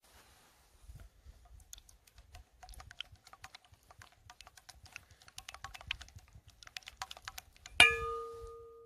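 Silicone spatula stirring egg yolks in a stainless steel mixing bowl: quick, irregular scraping clicks against the metal. Near the end a sharp knock on the bowl sets it ringing with a clear tone that fades slowly.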